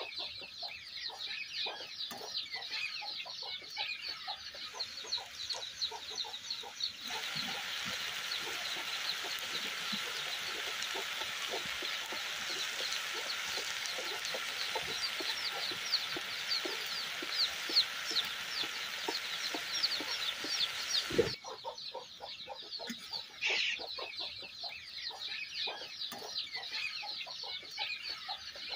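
Small snake fish and okra frying in oil in a metal kadai, sizzling and crackling while a ladle stirs and knocks against the pan; the sizzle is much louder for a stretch in the middle. Chickens cluck and chirp in the background.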